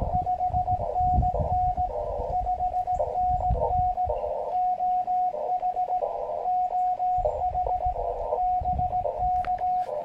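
Morse code (CW) signal received on an Elecraft KX2 transceiver and played through a small portable speaker: a single steady mid-pitched tone keyed in dots and dashes. A hiss of band noise through the radio's narrow filter fills each gap between the elements.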